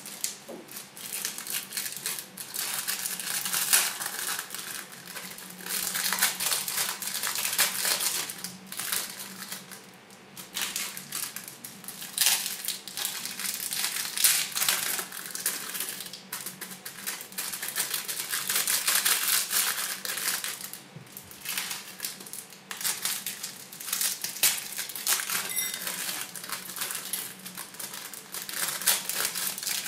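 Small plastic sachets of Orbeez water beads crinkling and crackling as they are handled, squeezed and emptied, in stretches of a few seconds with short lulls.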